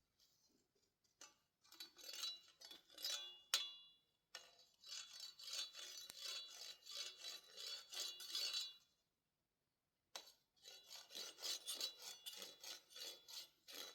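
Quick rhythmic scraping or rubbing strokes against a hard surface, in three runs with short pauses between them, about a second, four seconds and ten seconds in.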